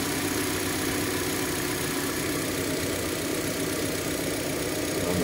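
Hyundai Elantra engine idling steadily while misfiring and shaking, even with new spark plugs and ignition coil; the fault code read afterwards points to the crankshaft position sensor (P0335).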